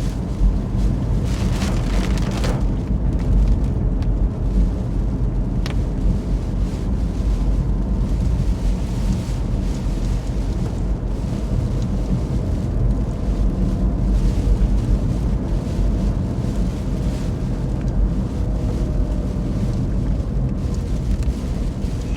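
Storm wind buffeting the microphone: a heavy low rumble that swells and eases with the gusts, with a lighter hiss over it.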